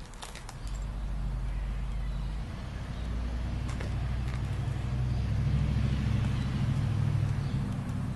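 Low, steady rumble of a running motor, growing louder over several seconds, with a few faint clicks.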